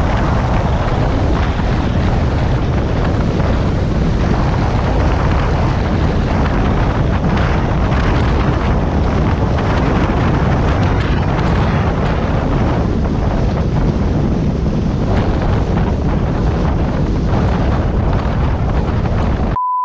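Steady, loud wind buffeting the microphone together with road rumble from a vehicle travelling along a highway. The noise cuts off abruptly near the end and a short beep tone starts.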